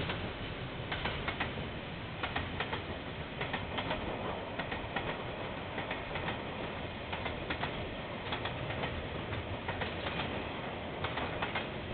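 KiwiRail freight train wagons rolling past in a steady rumble and rattle, with scattered clicks and knocks from the wheels on the track. Heard through a security camera's microphone.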